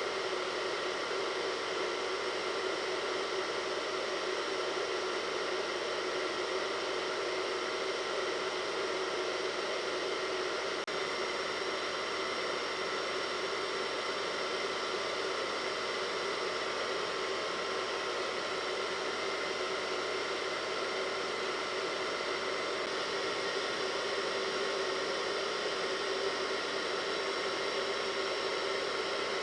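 Hair dryer running steadily: a constant rush of blown air with a steady motor whine that never changes in level or pitch.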